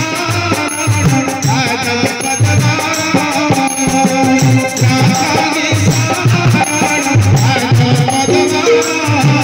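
Live Odia folk-theatre song: a man singing through a microphone over an electronic keyboard, with a held low note, a regular drumbeat and crisp rattling percussion.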